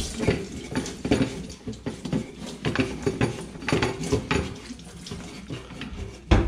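Kitchen tap running into a stainless steel sink while a paint-roller cover is rinsed and squeezed by hand, with irregular splashing. A single dull thud near the end.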